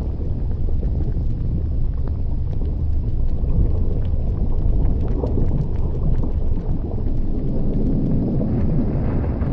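Erupting volcanic vent giving a steady, deep rumbling roar, with faint scattered crackles above it; the roar swells a little near the end.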